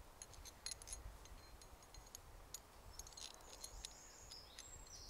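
Faint light clicks and clinks of small metal fittings, U-bolts and nuts, being picked up and handled, with a few short high chirps about three and a half seconds in. Otherwise near quiet.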